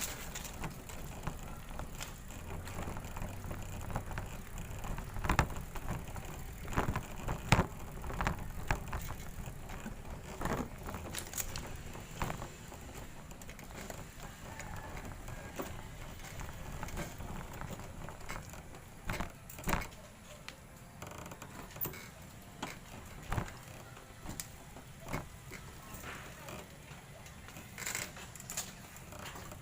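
Bicycle being ridden, with a steady low rumble and irregular clicks and rattles throughout.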